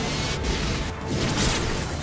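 Monster-movie battle sound effects: energy-beam blasts with whooshes and explosions, over background music.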